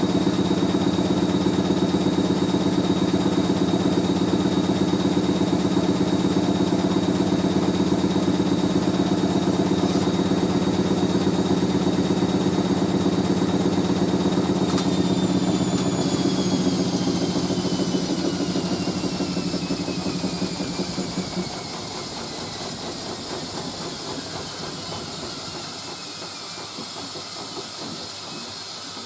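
Hoover A3060 washing machine spinning at speed, its motor giving a steady hum with a high whine. About halfway through there is a click, and the whine falls away as the drum coasts down. A softer steady hiss is left near the end.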